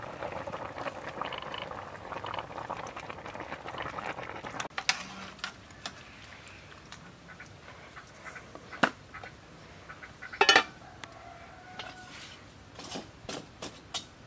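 Dried mushrooms, black fungus and bean curd rustling as they are tipped into an aluminium pot of simmering braised duck, then a few clinks and one loud ringing metal clank about ten seconds in as the pot's lid goes on.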